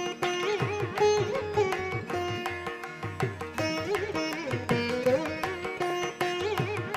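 Indian classical-style instrumental background music: a plucked string instrument playing a melody with sliding, bending notes over a steady pattern of low drum strokes.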